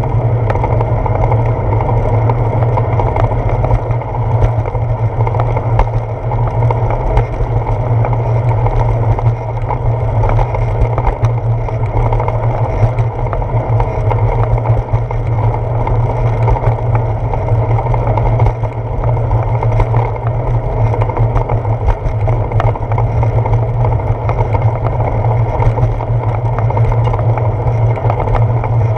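Steady loud rumble of riding noise picked up by a handlebar-mounted GoPro Hero 4 on a moving bicycle: tyre and path vibration through the mount, with many small clicks and knocks from bumps.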